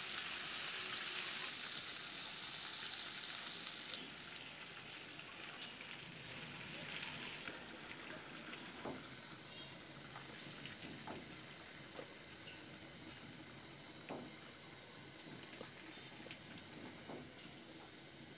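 Marinated chicken legs shallow-frying in hot oil in a nonstick pan: a steady sizzle that drops to a quieter hiss about four seconds in. After that, a scattering of small sharp clicks as a wooden spatula turns the pieces and lifts them out.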